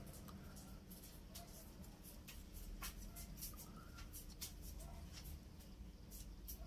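Faint irregular ticks and crackles of dry leaf litter as a California kingsnake shifts while swallowing a mouse, over a low steady hum, with a few faint short chirps.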